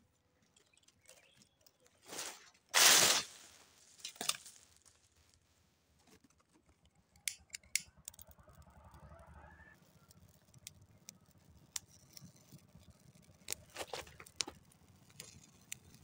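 Dry leaves rustling and crunching as they are handled by hand, in scattered crackles, with a loud rustling burst about three seconds in.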